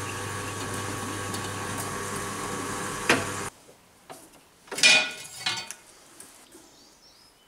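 Pillar drill motor running with a steady hum, stopping abruptly about three and a half seconds in. A short metallic clatter follows about a second and a half later.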